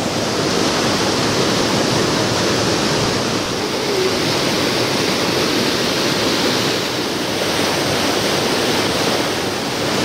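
River water rushing and splashing over large boulders in a small waterfall, a steady, loud rush of white water.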